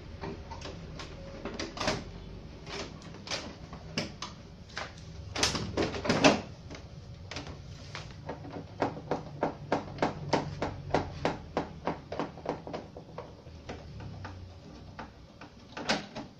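Plastic clicks and knocks from the rear cabinet of a Sony Wega CRT TV being handled, with a screwdriver worked against it. There is a louder cluster about five to six seconds in and a regular run of about two clicks a second in the middle, over a low steady hum.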